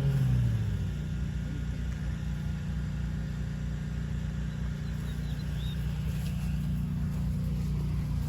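Steady low mechanical rumble, like an idling engine, with a brief drop in pitch at the start. A few faint high chirps about five to six seconds in, from the baby birds found in the dryer vent.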